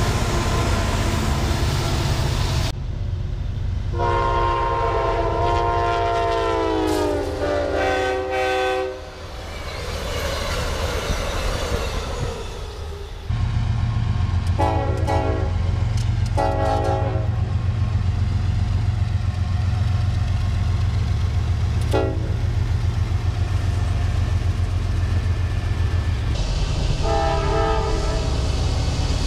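A freight train rolls past close by, then a diesel locomotive's chime horn sounds a long chord that drops in pitch as it passes. After a cut, an approaching freight train sounds its horn over a steady low rumble: long, long, short, long, the grade-crossing signal.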